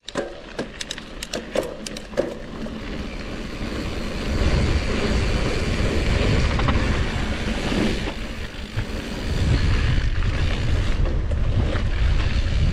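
Mountain bike rolling fast over a dirt and gravel trail, with a scattering of sharp clicks and rattles in the first two seconds. From about four seconds in a loud wind rumble sets in on the microphone as speed builds. It eases briefly near nine seconds, then returns.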